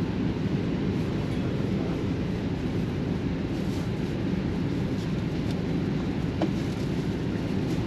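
Steady low rumble inside a moving vehicle's cabin, with a few faint ticks.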